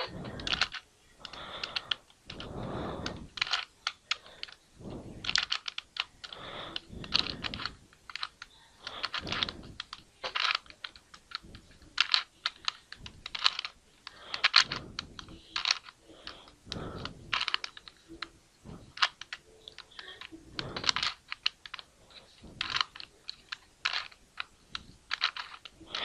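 3x3 Rubik's cube being turned over and over by hand, its plastic layers clicking and clattering in quick runs of clicks with brief pauses between, as the same two turns, top then right, are repeated.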